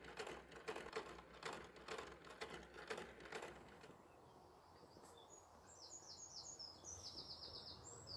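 A run of dry knocks or taps, about three a second, that stops about three and a half seconds in. From about five seconds a songbird sings short, repeated high chirping phrases.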